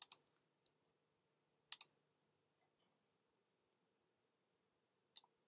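A few sharp computer mouse clicks with near silence between: a quick pair at the start, another about two seconds in, and one near the end.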